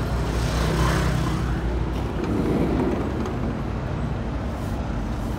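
Steady low rumble of motor-vehicle noise, with no sharp events.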